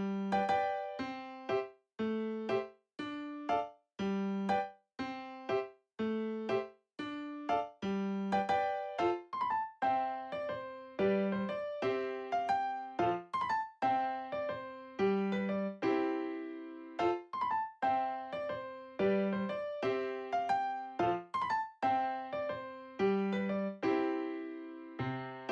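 Background music: a light, bouncy keyboard tune with a steady beat, bass notes alternating under a plinking melody.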